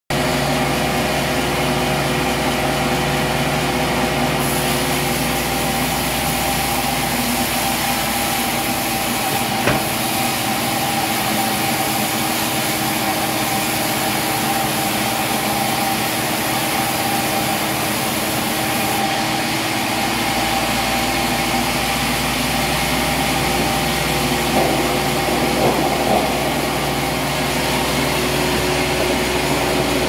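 Large band sawmill running steadily as its band blade saws through a log: a constant machine hum with several held tones under a wide hiss. A single sharp knock comes about ten seconds in.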